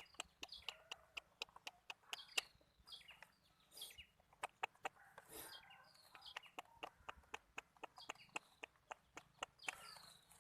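Chickens clucking and peeping, with short falling chirps repeating, over a steady run of sharp clicks, about three or four a second.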